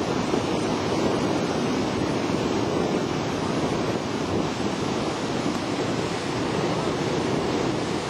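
Steady rushing noise of a waterfall, with wind buffeting the microphone.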